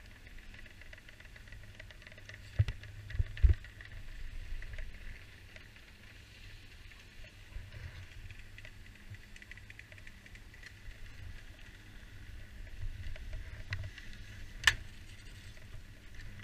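Magic-carpet ski conveyor belt running under the skis with a steady low rumble, broken by a few sharp knocks about three seconds in and one more near the end.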